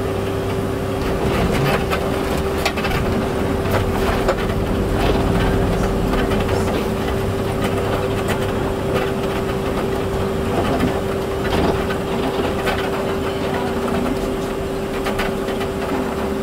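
A vehicle running at low speed: a steady hum over a low rumble, with scattered clicks.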